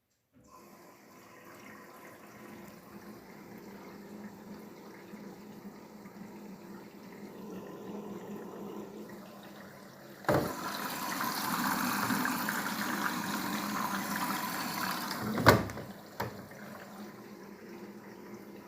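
Daewoo DWD-FT1013 washing machine taking in water, a steady rushing with a faint hum. About ten seconds in a click comes and the inflow grows louder; about five seconds later a sharp click cuts it back to the quieter flow, with one more small click soon after.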